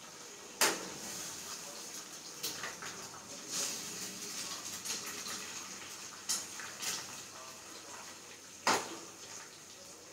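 Eggs being cracked against the rim of a wok, giving a few sharp knocks, over the steady sizzle of hot oil frying green chillies and egg.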